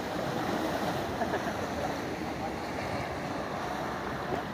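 Small sea waves lapping and washing against a rocky shoreline, a steady wash of water with some wind on the microphone.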